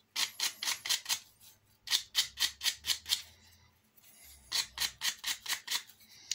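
Hand-held 80-grit sandpaper rubbed back and forth over the edges of small cut-out model bridge parts, taking the corners off the tangs. Three runs of quick rasping strokes, about five a second, with short pauses between.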